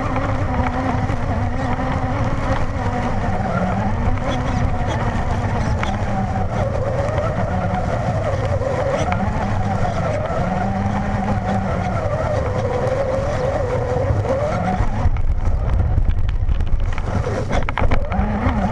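Traxxas Slash VXL RC truck's brushless motor and drivetrain whining as it drives through grass, the pitch rising and falling with the throttle. Near the end the sound turns rougher and a little louder, with a quick run of knocks.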